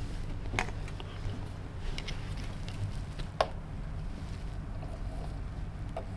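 Light clicks and knocks of a ruler and marker being handled against a whiteboard, over a steady low room hum. The sharpest click comes about three and a half seconds in.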